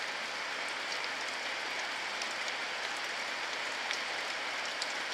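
Steady rain falling: an even hiss with a few sharper drop ticks scattered through it.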